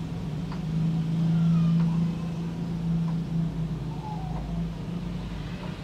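Low, steady engine-like hum that swells about a second in and then eases back, with a few faint short gliding tones over it.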